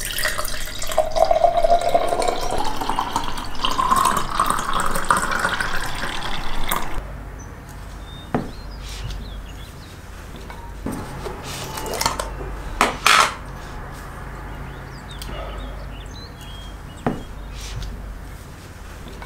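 Fruit juice poured in a thin stream into a tall drinking glass, splashing steadily, the pitch of the filling rising as the glass fills. Then a few light clicks and knocks as a wooden spoon is worked at the glass.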